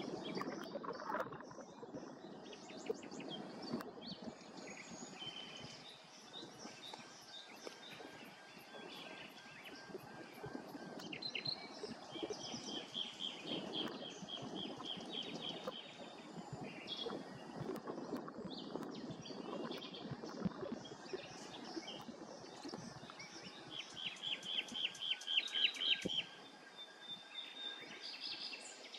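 Outdoor ambience with small birds singing: high chirps and fast trilled runs of notes come and go, loudest about 25 seconds in, over steady low background noise.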